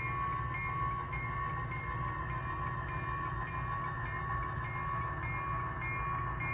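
Model diesel locomotive running along the layout track pulling freight cars: a steady mechanical hum with a light regular ticking about twice a second.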